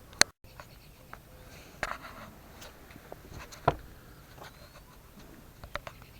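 A few scattered sharp clicks and knocks against a quiet background. The loudest comes right at the start and is followed by a moment of dead silence. Fainter knocks come about two seconds in, near four seconds and near the end.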